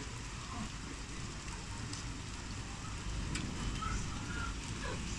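Steady heavy rain falling, with a couple of sharp ticks of drops standing out.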